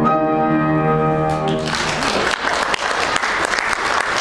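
The closing chord of the piano accompaniment rings out, then about a second and a half in the audience starts applauding.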